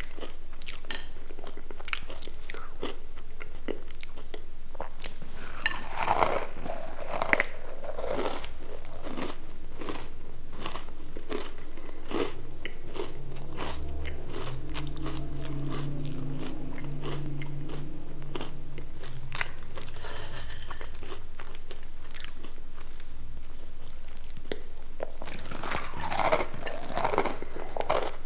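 Close-miked crunching and chewing of crisp fried potato sticks: many sharp crackling bites, with the loudest bursts about six seconds in and again near the end.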